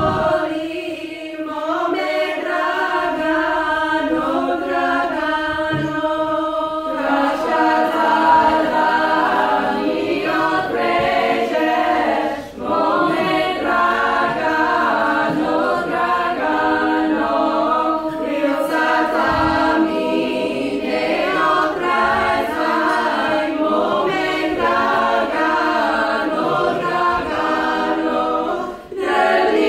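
Women's choir singing a Bulgarian folk song a cappella in close harmony, over a held drone note. There are brief pauses for breath about twelve seconds in and near the end.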